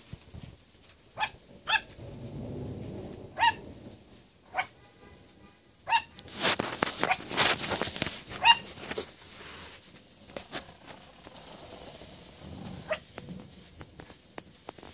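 Yorkshire terrier puppy yapping: single short, high-pitched barks spaced a second or more apart, about seven in all. A few seconds of rough noise run through the middle.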